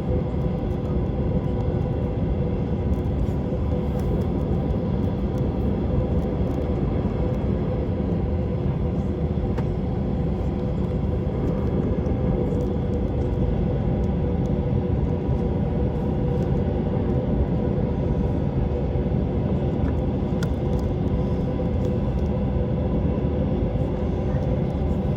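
Steady jet airliner cabin noise: an even rumble of engines and rushing air with a constant hum, unchanging throughout.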